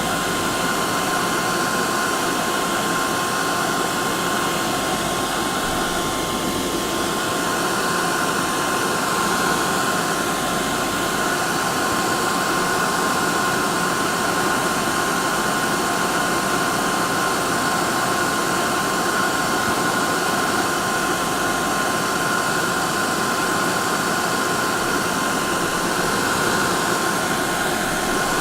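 Hair dryer running steadily: an even rush of blown air with a constant motor whine, played continuously as white noise for a colicky baby's sleep.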